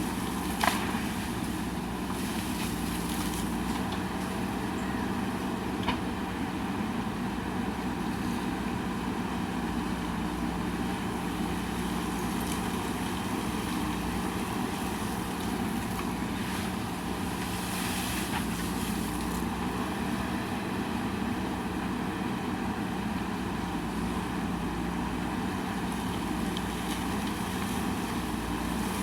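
JCB backhoe loader's diesel engine running steadily, with a sharp metallic knock under a second in and a fainter one about six seconds in.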